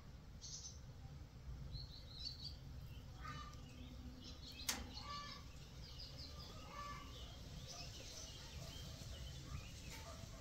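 Small birds chirping and twittering on and off over a low, steady background rumble, with one sharp click about halfway through.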